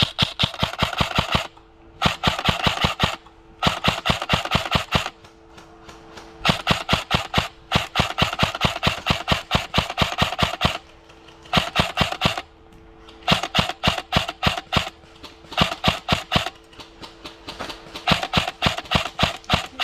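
Airsoft rifle firing on full auto in rapid bursts of clicking shots, about eight bursts with short pauses between them, the longest running about four seconds.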